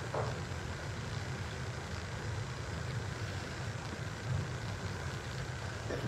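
Steady low hum with a faint hiss: the room tone of a large chamber, with no distinct events.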